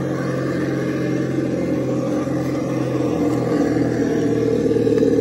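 Simulated engine sound from an ESS-Dual+ engine sound simulator on a RedCat Ascent RC crawler, a steady engine note that rises slightly in pitch and loudness about four seconds in as the truck is driven over rock.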